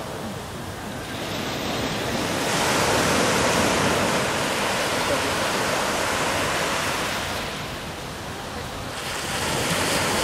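Rushing wash of sea waves and wind on the microphone, swelling louder a couple of seconds in, easing off briefly, then rising again near the end.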